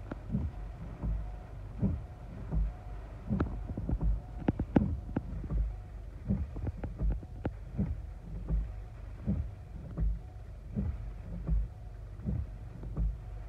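Rain on a car's windshield and roof, heard from inside the car: a steady patter with sharp drop ticks, thickest between about three and eight seconds in, over a regular low thump about every three-quarters of a second.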